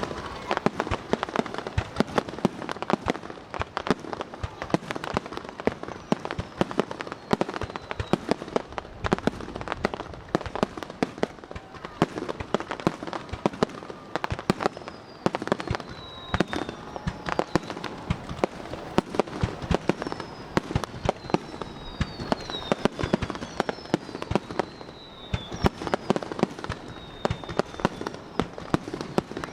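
Fireworks display: dense, rapid bangs and crackling of bursting shells with no break. From about halfway through, several high whistles glide down in pitch among the bangs.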